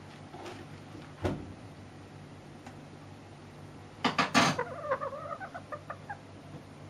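Sebright cockerel: a knock about a second in, then around four seconds in a sudden loud burst, followed by a run of short clucking notes.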